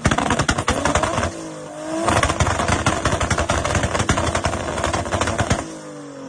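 Tuned Mercedes-AMG V8 revved hard, with rapid crackling and popping from the exhaust. A brief lift in revs comes about a second and a half in, and near the end the revs fall away.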